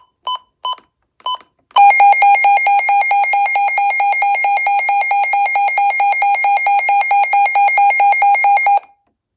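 Midland WR120 weather radio sounding its alert siren: a loud, rapidly pulsing electronic tone warbling between two pitches for about seven seconds, preceded by four short beeps.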